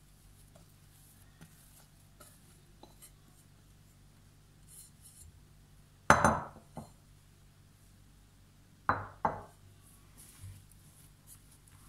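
Faint room tone broken by short knocks. There is one loud knock with a brief ring about six seconds in and two quicker knocks about nine seconds in, from a glass mixing bowl and hands against a granite worktop.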